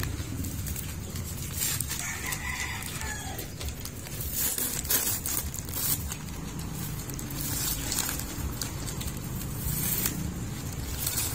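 A rooster crows once, about two seconds in, with scattered sharp knocks and clicks over a steady low hum.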